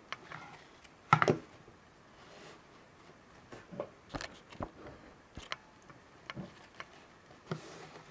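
Handling of a GoPro Chesty chest harness: webbing straps rustling and plastic buckle parts clicking and knocking on a table, with a louder clatter about a second in and scattered sharp clicks later.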